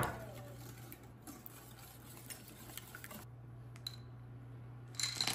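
A metal wire whisk clinks sharply against a ceramic mixing bowl, ringing briefly, followed by faint small knocks of utensils and bowls. Near the end comes a short rustling rattle as blueberries are tipped into a bowl of flour.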